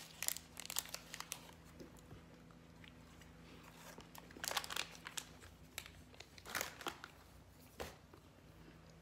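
Plastic snack wrapper crinkling and crumbly tahini halva being broken off and bitten, in several short bursts of crackle.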